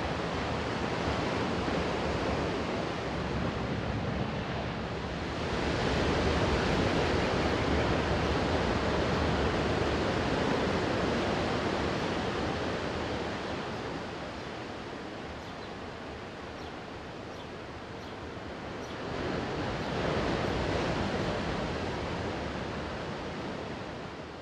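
Sea surf washing onto a beach: a steady rush of waves that swells louder twice, about five seconds in and again near twenty seconds, then fades out near the end.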